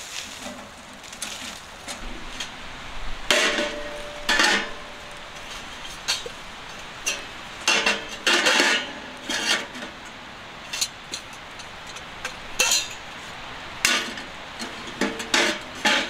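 Small sheet-metal wood stove being handled: its door and parts clank and rattle in several short bursts of metal knocks, some ringing briefly.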